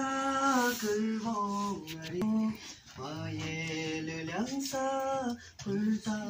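Voices singing a slow melody in long held notes that step from one pitch to the next, with short breaks between phrases.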